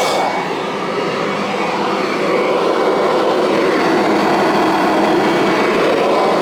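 Kirby upright vacuum cleaner running on a rug. Its steady motor noise wavers a little in tone, and dips slightly in level about half a second in.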